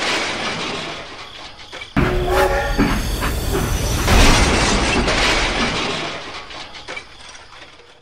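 Train running, a loud rushing rumble that cuts in sharply about two seconds in, with a short horn-like tone soon after, then fades away toward the end.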